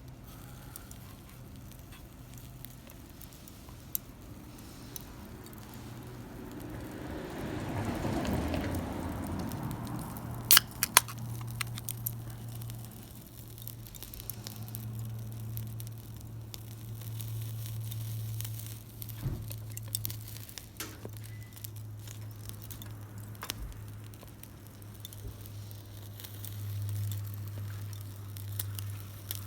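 Meat sizzling on a grill over a small wood fire, with the fire crackling. A rush of noise swells and fades about eight seconds in, and a pair of sharp clicks comes about ten and eleven seconds in.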